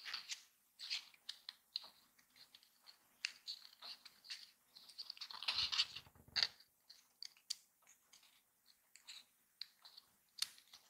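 Small folded card-paper parts handled and pressed together by fingers: crisp paper crackles and small clicks, with a longer crinkling rustle about halfway through.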